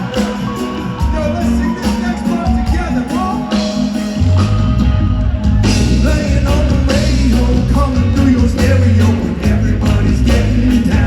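Live reggae band playing with a sung vocal line; the bass and drums come in much heavier about four seconds in.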